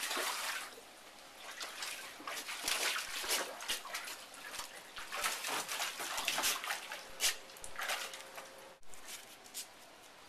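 Water splashing and sloshing in a shallow kiddie pool as Bull Terriers move and play in it, in irregular splashes that die down near the end.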